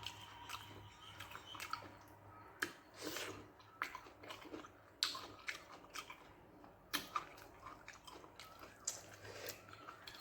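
A person chewing a mouthful of soft rice and spicy gravy, with irregular wet mouth clicks and smacks, a few of them sharper and louder.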